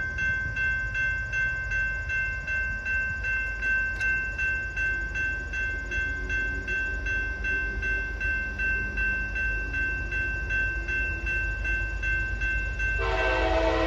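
Railroad grade-crossing bell ringing in a steady, even rhythm of about two strokes a second, over low wind rumble. The approaching freight train's horn, on lead locomotive CSX SD70AH-T4 8903, is faint in the middle and comes in loud about a second before the end.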